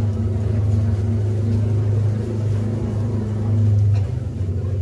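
A steady low motor hum, swelling briefly near the end.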